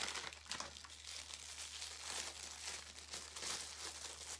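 Aluminium foil and a plastic wrapper crinkling and crackling as a block of paper clay is unwrapped by hand. The crinkling goes on in quick, uneven crackles and stops at the end.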